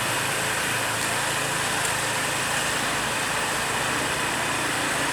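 A steady engine-like running noise with an even rushing hiss and a faint low hum, unchanging throughout.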